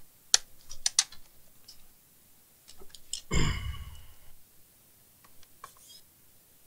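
Sharp plastic clicks and taps of things being handled on a workbench, a quick cluster of them in the first second. One louder knock with a short scrape comes about three and a half seconds in.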